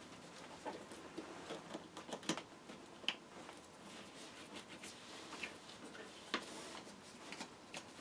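Scattered light clicks and rustling of hands handling a power seat's wiring harness and plastic connectors, with a few sharper ticks about 2, 3 and 6 seconds in.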